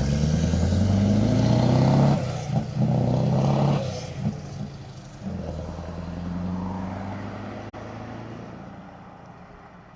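Scania R500 and R480 trucks' diesel engines revving through side-exit exhausts. There is a long rev for about two seconds, a shorter rev around three seconds in and a lower one near the middle, and then the sound fades away toward the end.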